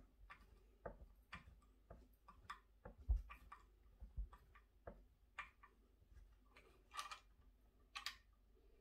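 Faint, irregular small clicks and taps of fingers working a small metal strap-lock part at the edge of a lacquered guitar body. A dull knock comes about three seconds in and another about a second later, with two slightly longer clicks near the end.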